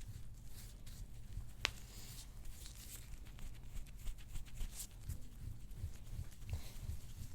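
Quiet rustling of hands and clothing during hands-on back treatment, over a steady low hum, with one sharp click about one and a half seconds in.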